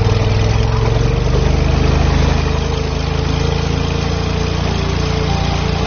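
An engine running steadily with a constant hum, over water churning and spraying from a cavitation water-jet cleaning disc working at the hull.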